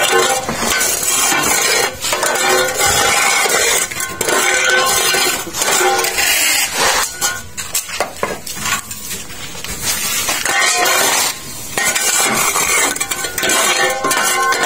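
Steel scraper raking damp sand-and-cement block mix across the steel mould table of a manual concrete-block press, a gritty scraping with metal clinks and knocks as the mix is levelled into the mould cavities.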